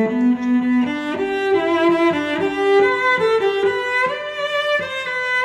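Background music: a melody on a bowed string instrument, its notes climbing step by step.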